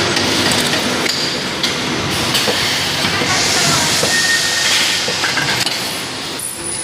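Industrial machinery running with steady mechanical clatter and knocks, and a stretch of hissing air in the middle.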